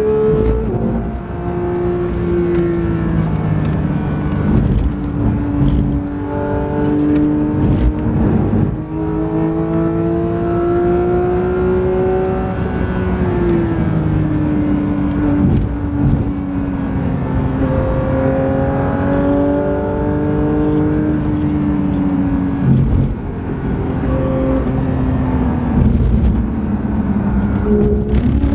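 Porsche 992 GT3's 4.0-litre naturally aspirated flat-six engine heard from inside the cabin while lapping a track. Its pitch rises and falls, with several abrupt shifts.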